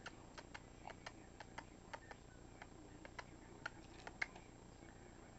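Faint, irregular light clicks and clacks of a baby's plastic toy keys knocking together on their ring as she handles them, about a dozen in all, with two slightly louder clacks near the end.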